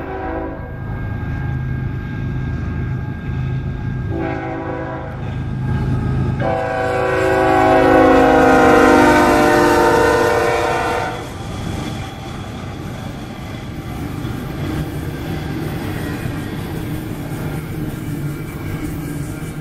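Union Pacific GE diesel freight locomotive's air horn sounding: a blast ending about half a second in, a short blast around four seconds, then a long, loud blast from about six to eleven seconds as the lead unit passes, all over the diesels' running. After that comes a steady rumble and clatter of double-stack intermodal well cars rolling past on the rails.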